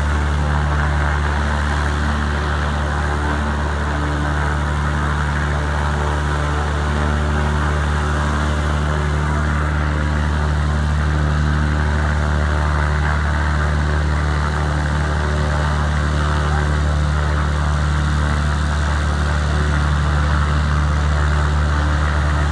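Piston engine of a small single-engine plane idling steadily, a deep even drone.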